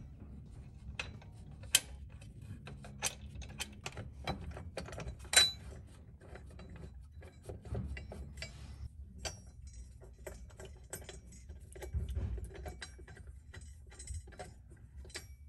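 Irregular sharp metal clicks and clinks of bolts and a rear differential brace being fitted by hand, with runs of ratchet-wrench clicking, denser in the second half.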